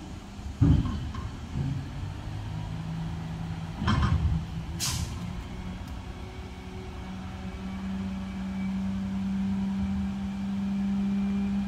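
Automated side-loader garbage truck dumping a cart: a bang about a second in and another near four seconds as the arm handles the cart, a short sharp air hiss just after, typical of an air brake release. Then a steady hum of the truck's engine and hydraulics grows louder and cuts off at the end.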